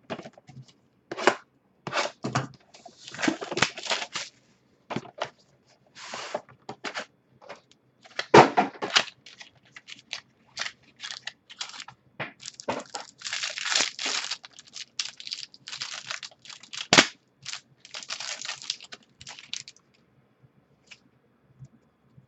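A trading-card box being opened by hand: tearing and crinkling of the wrapper and cardboard, with sharp clicks and knocks of handling, in irregular bursts over about twenty seconds.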